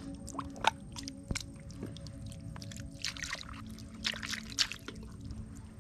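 Wet mud squelching and sucking as a hand and arm dig into a tidal mudflat, in irregular squishes and clicks, with two longer squelches about three and four seconds in.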